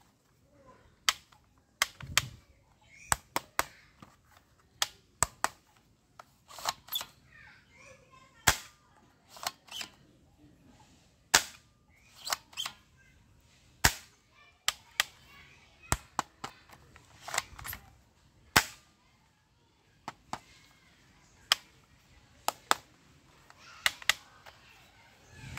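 Plastic toy gun being handled and worked, giving sharp plastic clicks at irregular intervals, about one or two a second.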